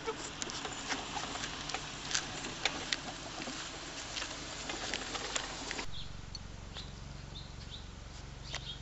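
Wire pet cage on a toy wagon rattling and clicking irregularly as the wagon rolls over pavement. About six seconds in the sound drops to a quieter background with only a few light ticks.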